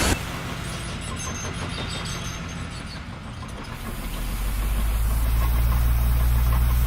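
Engine of a heavy construction machine running steadily with a low hum, getting louder from about four seconds in.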